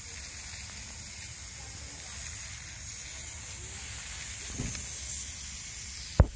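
Hunter PRS40 pop-up sprinkler head running, its nozzle spraying water with a steady hiss that eases a little about halfway through. A short thump near the end.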